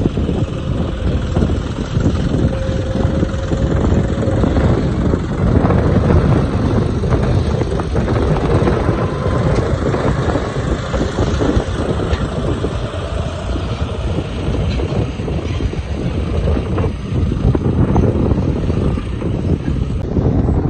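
Heavy earthmoving machine's engine running steadily under load, with wind buffeting the microphone.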